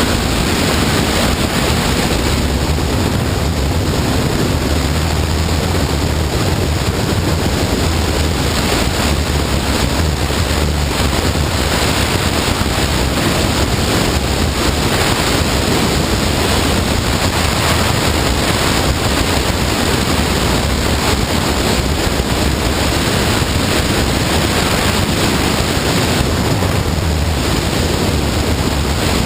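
Heavy wind rushing over the microphone of a motorcycle riding at speed, with the steady drone of the Honda CBR954RR's engine underneath.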